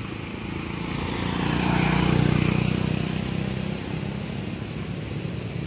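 A motor vehicle's engine passing by, swelling to its loudest about two seconds in and then fading away.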